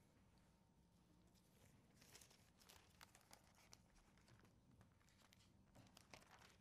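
Near silence: room tone with a few faint paper rustles and soft clicks, pages being turned to find a passage.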